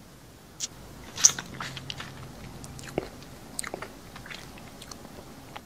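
A person biting into something hard and crunchy and chewing it. A loud, crisp bite comes about a second in, then a run of crunches that thins out over the next few seconds.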